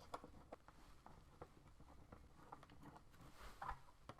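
Near silence with faint, scattered small clicks and taps, about three and a half seconds in a slightly louder one: a small screwdriver working the spring-loaded heatsink screws on a MacBook Pro logic board.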